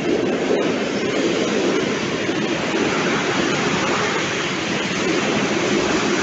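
Open high-sided freight wagons of a passing freight train rolling by close up: a steady, loud rumble and rush of wheels on the rails.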